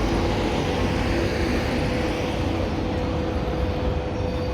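Street traffic rumbling steadily, with a thin, steady whine from the handheld camera gimbal's motors.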